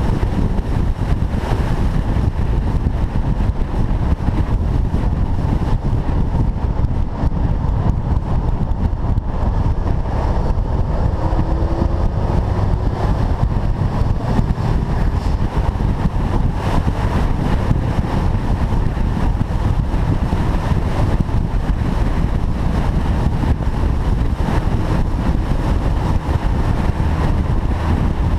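A car driving, with steady engine and road rumble plus wind noise. A faint rising engine tone comes in about twelve seconds in.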